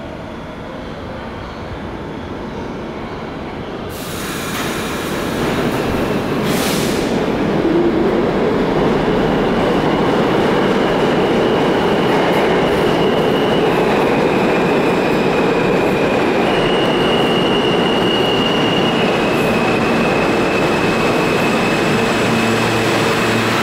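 R160B subway train arriving in an underground station. The rumble of wheels on rail grows over the first several seconds and turns loud as the train runs in along the platform. High, steady squealing tones from the braking wheels shift pitch a few times, and a low hum comes in near the end as it slows.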